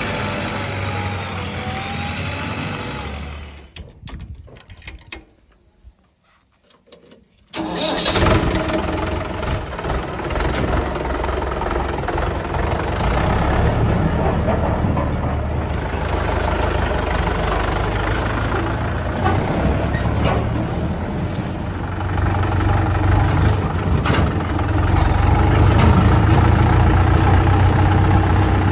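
Diesel engine running, then fading out about four seconds in. After a few seconds of near quiet, a tractor's diesel engine comes in suddenly and runs steadily, a little louder near the end.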